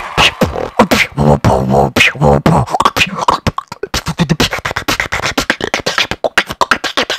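Human beatboxing: kick, snare and hi-hat mouth sounds mixed with hummed bass notes in the first half, then a faster, denser run of sharp percussive strokes from about four seconds in.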